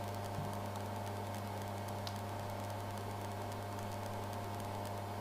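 Steady electrical mains hum with faint hiss: room tone. Nothing else happens.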